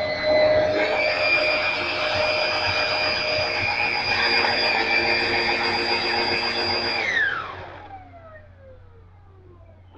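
Hoover WindTunnel V2 upright vacuum running with its brushrolls engaged, a steady whine that rises slightly in pitch about a second in. About seven seconds in it is switched off and the whine falls away as the motors spin down.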